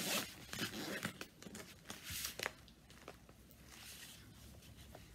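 Zipper on a hard-shell vanity case pulled open in several rasping strokes, with a few light clicks as the case is handled and its lid lifted.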